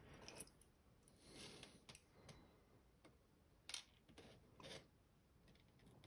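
Faint, scattered small clicks of steel tweezers handling the pins of a pin tumbler lock plug and setting them in a pin tray.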